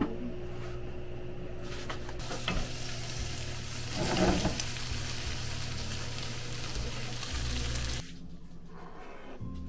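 Food sizzling in a hot pan, a steady crackling hiss that swells briefly in the middle and cuts off suddenly about eight seconds in.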